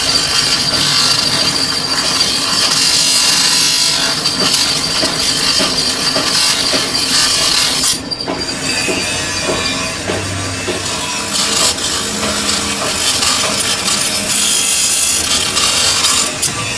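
Metal lathe working a sugarcane juicer roller bush: continuous harsh scraping of metal on the turning workpiece with a steady high thin whine, which drops out about eight seconds in before the scraping carries on.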